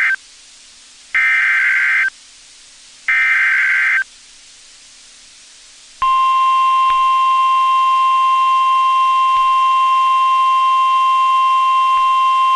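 NOAA Weather Radio Emergency Alert System activation for a severe thunderstorm warning: the end of the first SAME digital header burst, then two more identical data bursts, each about a second long and a second apart. About six seconds in comes the steady, continuous 1050 Hz weather radio warning alarm tone.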